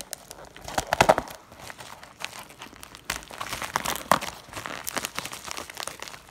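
Blue plastic bubble mailer crinkling and rustling as it is slit open along its edge with a small knife blade, in irregular scratches and clicks, loudest about a second in.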